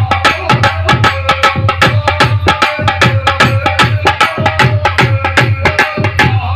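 Instrumental passage of Indian devotional music: a fast hand-drum beat of several strokes a second over a held melody line.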